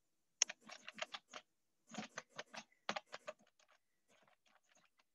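Typing on a computer keyboard: three quick runs of keystrokes, then a few fainter scattered taps, as a short question is typed into a video-call chat.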